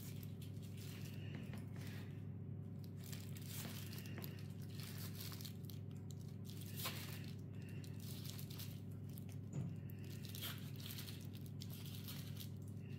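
Faint, irregular crinkling and rustling of aluminium foil and soft dough being handled as a dough strip is wound around a foil-wrapped cylinder. A steady low hum runs underneath.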